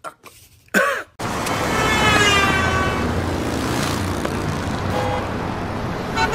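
Road traffic noise as cars pass on a busy street. A tone falls in pitch early on, and a car horn sounds near the end.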